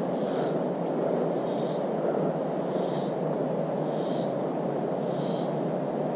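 Steady rushing noise of the forest, with a short raspy animal call repeating at an even pace about once every second and a bit.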